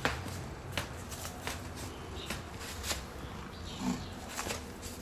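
Irregular light clicks and rustles, roughly one or two a second, over a low steady hum.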